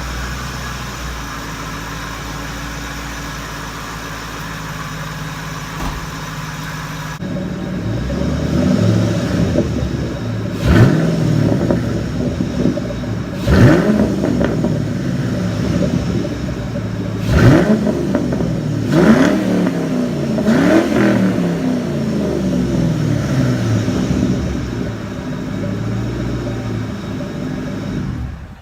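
2006 Ford Mustang GT's 4.6-litre V8, breathing through a newly fitted JLT Series 3 cold air intake, running steadily at first. After an abrupt change about seven seconds in, it is revved up and let fall back about five times.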